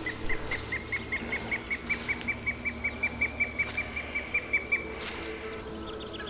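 A bird calling a rapid run of about two dozen short whistled notes, about five a second, creeping slightly up in pitch and stopping about five seconds in.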